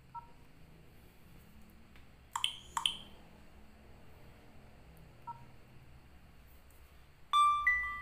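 Nokia 3806 alert-tone previews from the phone's loudspeaker as the tone list is scrolled: a faint key beep, then two short bright notes about two seconds later; another faint key beep, and near the end a louder chime of two ringing notes, lower then higher, that fades away.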